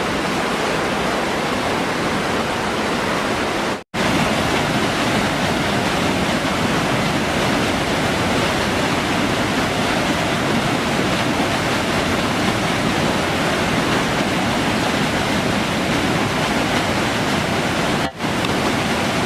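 Steady, loud rushing water. It cuts out abruptly for a split second about four seconds in and dips briefly again near the end.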